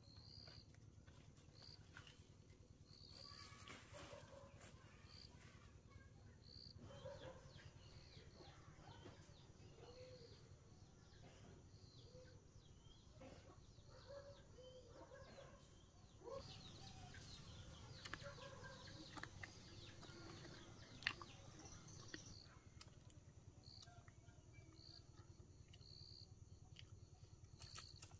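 Faint clucking of chickens over a quiet rural background, with short high chirps repeating about once a second and one sharp click about three-quarters of the way through.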